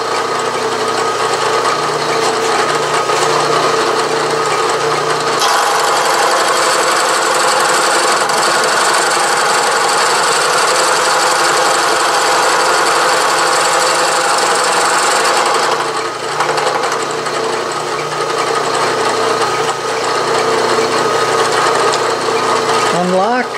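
Milling machine running with a gear cutter turning on its arbor. From about five to sixteen seconds in, the cutter feeds through a steel gear blank, cutting one tooth space, and the sound gets louder and harsher; then the machine runs on steadily with the cutter clear of the work.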